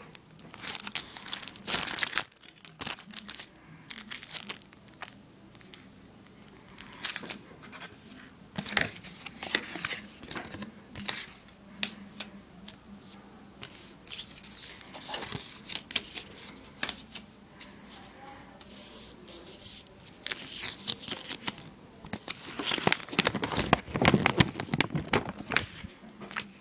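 Cardboard box and paper packaging being handled and opened: irregular rustling and scraping with sharp clicks and taps, loudest about two seconds in and again near the end.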